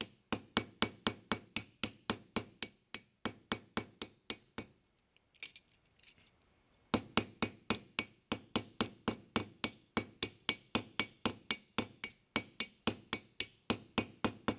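Ball-peen hammer gently tapping the end of a brass hinge pin on a steel anvil, about four quick taps a second, mushrooming the pin over so it stays in place. The tapping stops for about two seconds around the middle, then resumes on the pin's other end.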